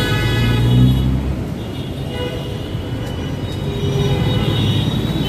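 Busy city road traffic: bus and car engines running and passing close by, with a vehicle horn sounding as it begins.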